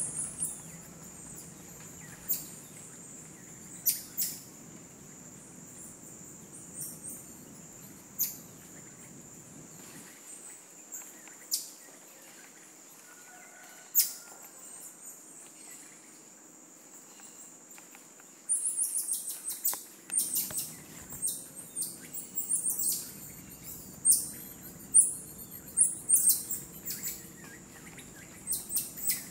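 Sharp, high-pitched animal chirps in rainforest canopy: a few scattered calls at first, then a rapid string of them from about two-thirds of the way in. Underneath runs a steady high insect drone.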